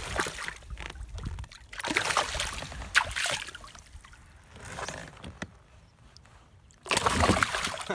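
Irregular bursts of water splashing and sloshing at a kayak's side, with a sharp knock about three seconds in. The loudest burst comes near the end.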